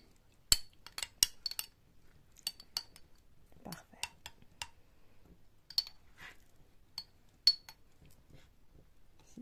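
Metal teaspoon clinking and scraping against a small glass yogurt jar, spreading chestnut cream over the jar's bottom. About a dozen sharp, ringing clinks at irregular intervals, with quiet scraping between.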